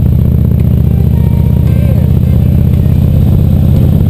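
Touring motorcycle's engine running steadily while the bike rides along, a loud, deep, even throb with no change in speed.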